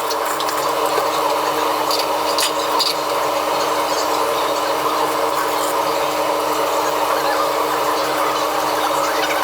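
Steady machinery hum with several constant tones, with scattered light clicks and clatters.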